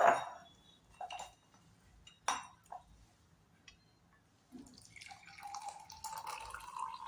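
A few light clinks of a saucepan and tea strainer. Then, from about four and a half seconds in, a steady trickle of freshly boiled kadha (a spiced herbal decoction) being poured through the strainer into a glass.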